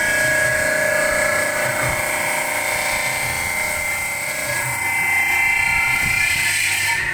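Metal pot spinning on a belt-driven electric lathe with a hand-held cutting tool pressed against it: a steady, high-pitched ringing whine with several held tones over a hiss.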